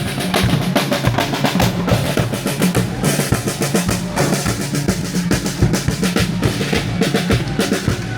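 Music with a drum kit playing a busy, steady beat over a bass line; it starts and stops abruptly.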